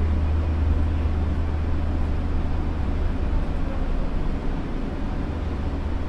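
Osaka Monorail train running along its elevated concrete beam on rubber tyres, heard from inside the front car: a steady low rumble and hum with even running noise over it.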